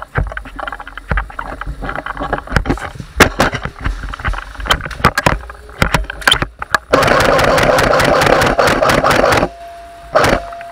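Scattered knocks and clicks of a player moving and handling his airsoft gear, then a loud full-auto burst from an electric airsoft rifle lasting about two and a half seconds: a buzzing with rapid, even shot clicks. A steady high tone follows near the end.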